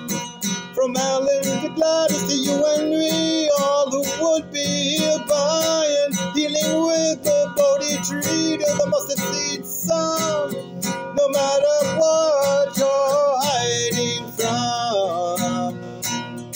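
Acoustic guitar strummed in a steady rhythm, with a sung melody without clear words over it that stops about three seconds before the end, leaving the guitar alone.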